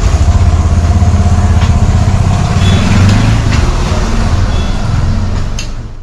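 Auto-rickshaw's small engine running, heard from inside the passenger cabin: a loud, steady low rumble with traffic and road noise, cutting off suddenly near the end.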